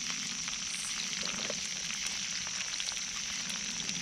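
Quahog clam cakes sizzling in oil in a pan over an open campfire, with frequent small pops and crackles. They are frying close to ready to flip.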